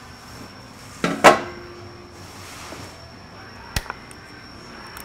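Hand handling of parts in a snowmobile engine bay: a loud clattering knock with a short ring about a second in, then a single sharp click near four seconds.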